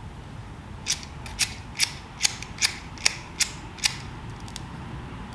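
Zippo emergency fire kit's flint-wheel striker being thumbed repeatedly, about eight sharp rasping clicks in quick succession, in an attempt to relight tinder.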